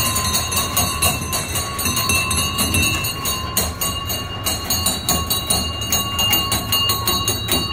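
Bow-mounted bells on kiddie-ride boats rung rapidly and over and over, a continuous clanging that stops near the end, over a low rumble.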